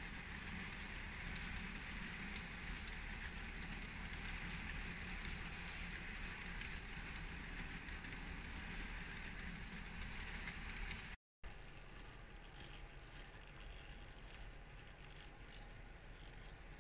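Model train running along its track: a steady, faint rolling rattle of wheels on the rails with a whine. About eleven seconds in the sound cuts out for a moment, then returns quieter with light clicks.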